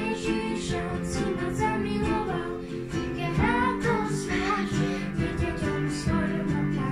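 A girl singing a Slovak children's worship song, accompanied by piano and a strummed ukulele.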